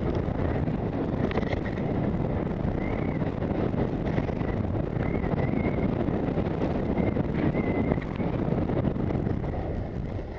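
Wind rushing over the microphone of a skier's body-worn camera during a fast downhill run, with the skis hissing over the snow. It eases slightly near the end as the skier slows.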